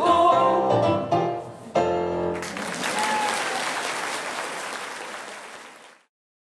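Women's voices singing the final notes of a song, ending on a held chord about two seconds in. An audience then applauds, the applause fading and cutting off abruptly near the end.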